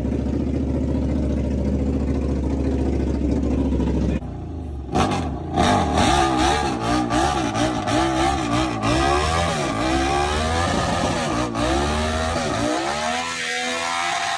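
Truck engine held at steady high revs for about four seconds. After a brief dip it is revved up and down over and over, the pitch wavering quickly, then it eases off near the end.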